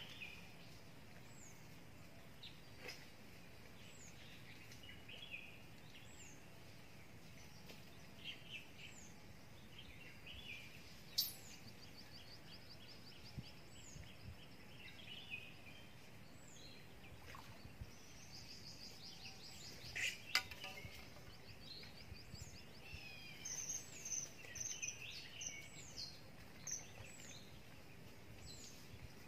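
Wild birds calling faintly: a short high note falling in pitch, repeated every second or two, with runs of trilled notes at times. Two sharp clicks stand out, about eleven and twenty seconds in.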